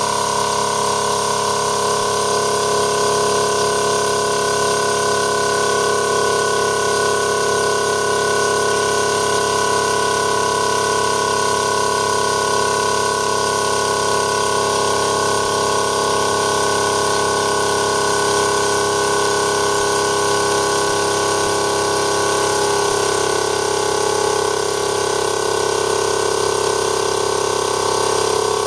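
A TWO STAR HT25L-15A 12-volt DC reciprocating-piston air compressor running steadily, pumping up the pressure in its 25-litre air tank.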